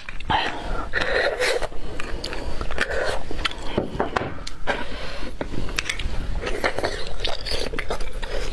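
Close-up sounds of a person biting and chewing roasted marrow bone, with many sharp crunching clicks and mouth noises.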